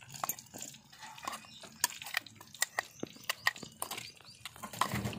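Steel spoon scraping and tapping ground masala powder out of a steel mixer-grinder jar into a stainless-steel bowl: a run of short metal clicks and scrapes.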